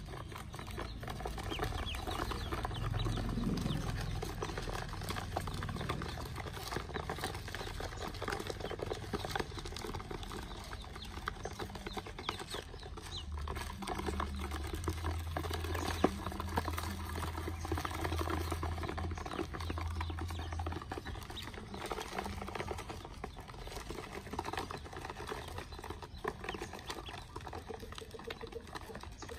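A crowd of domestic ducklings peeping continuously while their feet patter and scrabble on a plastic basin. A low drone comes in for several seconds midway.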